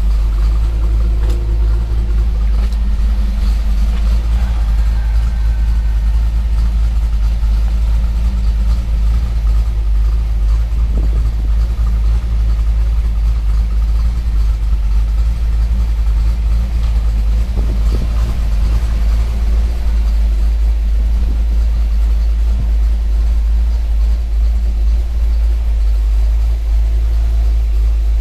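1994 Ford Mustang Cobra's 5.0-litre V8 idling steadily, a deep, even rumble.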